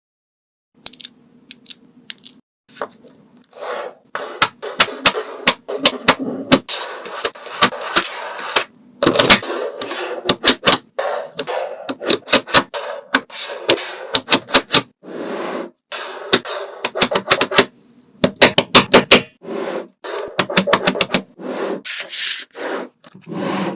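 Runs of sharp clicks and taps, some in quick succession, mixed with stretches of scraping and rustling, like small objects being handled, tapped and scraped at close range.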